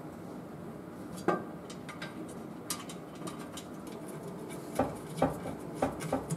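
Sharp metallic clinks and knocks of a steel aftermarket automatic-transmission pan being handled and seated against the transmission by hand: one about a second in, a fainter one a little later, then four in quick succession near the end.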